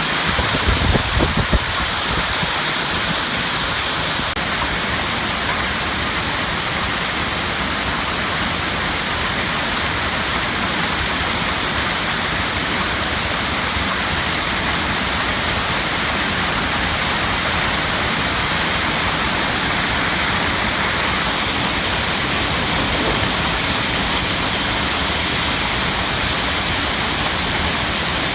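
Hail and rain pelting down in a severe storm, a loud steady roar with no let-up. About a second in, a few low thumps of wind buffeting the microphone.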